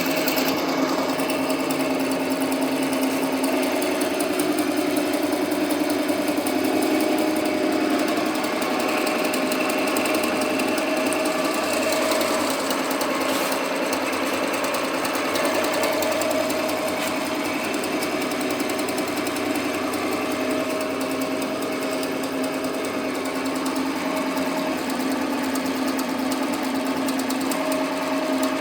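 Computerised embroidery machine stitching a cap at speed: a steady, fast needle-bar chatter with a running motor hum.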